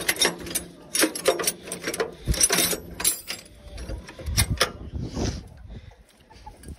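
Metal parts being handled: a string of sharp clinks and knocks, like tools and hardware on the machine, with a low steady hum under the first few seconds.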